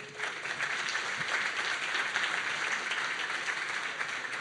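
Audience applauding, a dense patter of many hands clapping that comes up at once and begins to fade near the end.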